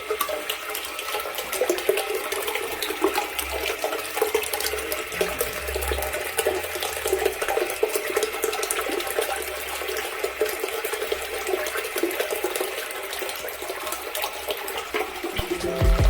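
Water running steadily through a push-button urinal's flush valve without shutting off: a flush that won't stop, the sign of a faulty flush valve.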